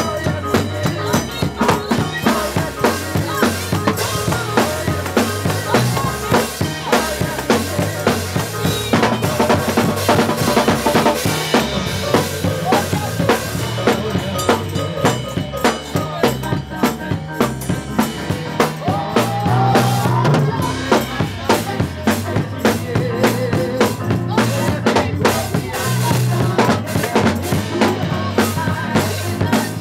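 Live gospel praise music: a drum kit keeps a steady driving beat, with keyboard and tambourine playing along.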